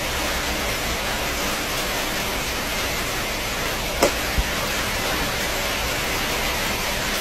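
Egg frying in a wok with salt, giving a steady sizzle, with a spatula knocking twice against the pan about four seconds in.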